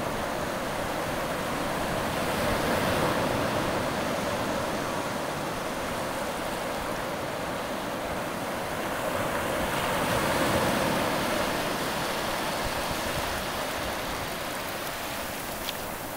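Shallow surf washing in over wet sand, a steady rushing hiss that swells twice, about three seconds in and again around ten seconds in.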